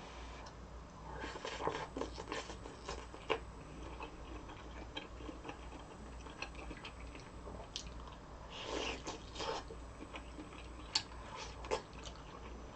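Close-up eating sounds: a person chewing and crunching food, in two busier stretches about a second in and again near nine seconds, with scattered small wet clicks between.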